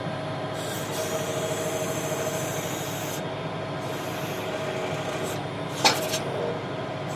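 A steady mechanical hum with a constant tone, typical of an engine running, and a single short knock about six seconds in.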